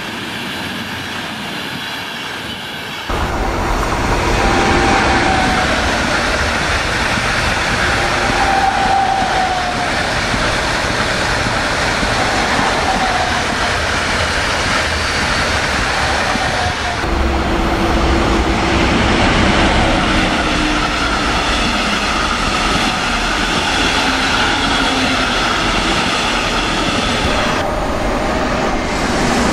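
Passenger trains passing close by: a steady rolling of wheels on the rails, louder from about three seconds in, with several short falling whines over it.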